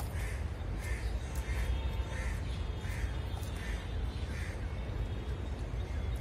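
A bird calling about seven times in a steady series, roughly one call every 0.7 seconds, stopping about two-thirds of the way through, over a steady low rumble.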